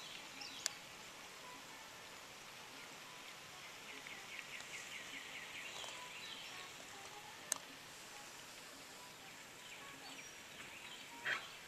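Faint outdoor yard ambience with birds chirping, including a rapid trill of short chirps a few seconds in. Two sharp clicks, one near the start and one about halfway.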